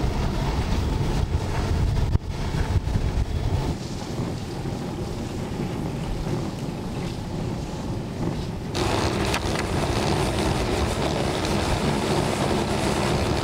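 Wind rushing over the microphone and the running noise of an all-electric snowmobile moving along a snow trail, with no combustion engine sound. The rush changes abruptly a few times, about two, four and nine seconds in.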